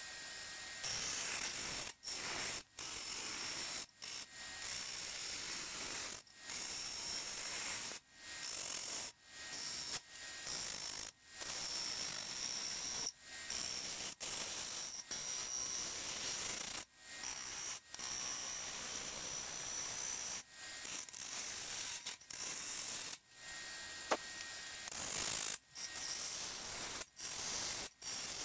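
Bowl gouge hollowing the inside of a spinning honey locust burl bowl on a wood lathe: a steady hiss and scrape of shavings being cut. The sound breaks off abruptly for a moment many times.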